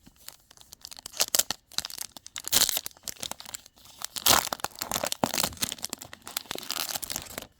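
A trading-card pack wrapper being torn open and crinkled by hand: irregular rustling with several sharp rips.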